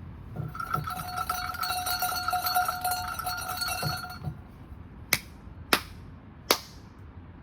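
A Shinto shrine bell (suzu) shaken by its rope, jangling with a steady ringing for about four seconds. After it come three sharp hand claps, the claps of a prayer at the shrine.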